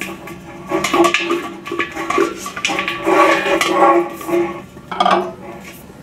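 Metal hardware clinking and clattering as the bracket is bolted to the dish with bolts, nuts and washers, a series of sharp clicks, over background instrumental music.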